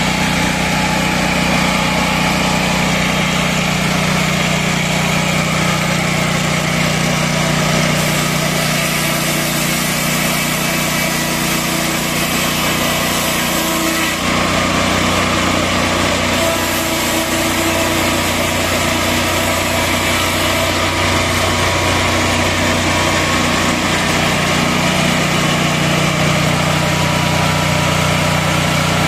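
A portable horizontal bandsaw mill running steadily, its engine and band saw going without a break; about halfway through the low engine note shifts and then holds steady again.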